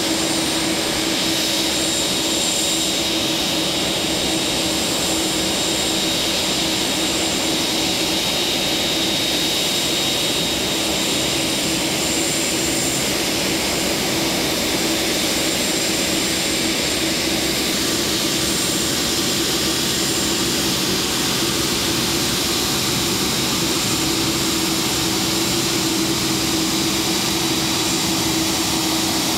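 Boeing 747-8 freighter's four GEnx turbofans running at taxi power: a steady rushing jet noise with a thin high whine and a low hum.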